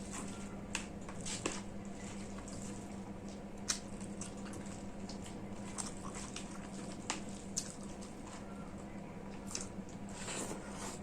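Close-up eating sounds of rice and curry: wet squishing and chewing, with scattered short smacks and clicks. A steady low hum runs underneath.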